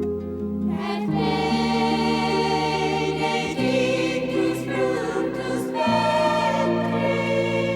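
A nuns' women's choir singing a sacred Christmas hymn in long held chords with accompaniment. The chord changes about a second in, again midway and near six seconds.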